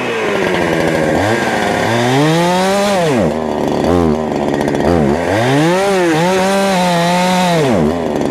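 Holzfforma G372 71cc two-stroke chainsaw engine revving up and down unevenly, sagging almost to a stall several times and dying near the end, as it runs out of fuel.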